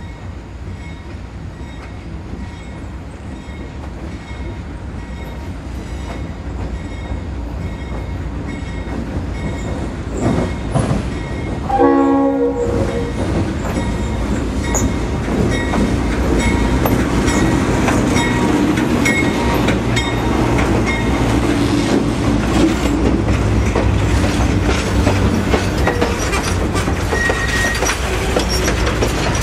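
A dinner train's diesel locomotive approaches with a rumble that grows steadily louder, and gives a short horn blast about twelve seconds in. The locomotive and passenger cars then roll past close by, wheels clicking over the rail joints.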